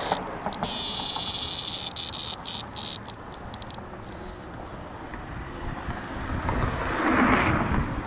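A periodical cicada held in the hand buzzing in a high, hissing drone that breaks off and restarts several times and stops about four seconds in: the distress buzz a cicada gives when handled. Near the end there is a short, louder rush of lower noise.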